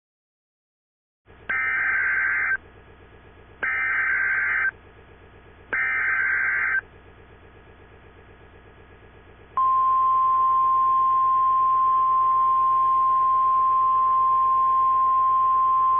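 Emergency Alert System SAME header: three bursts of rapid data warble, each about a second long and a second apart. A few seconds later comes a single steady, loud high alert tone that holds on, signalling the start of an emergency alert broadcast.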